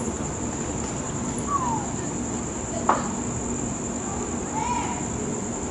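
Crickets trilling in one steady, high-pitched chorus, with a few short sliding calls over it about one and a half, three and five seconds in.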